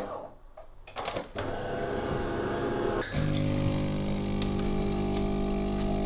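Bean-to-cup coffee machine starting a brew with pre-ground coffee. A couple of clicks come near the start, then a quieter machine sound runs from about a second and a half in. About three seconds in it steps up to a louder, steady hum as coffee starts to pour.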